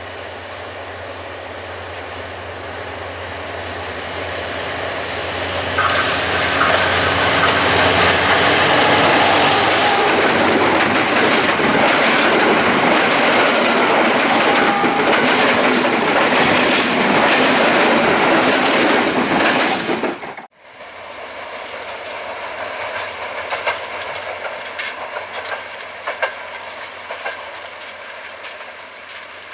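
Diesel-hauled passenger train passing close by. The locomotive's engine drone builds as it approaches, and the noise jumps sharply about six seconds in as it goes by, followed by the coaches' wheels clattering over the rail joints. After a sudden cut near two-thirds of the way, a quieter train is heard moving away, with scattered wheel clacks.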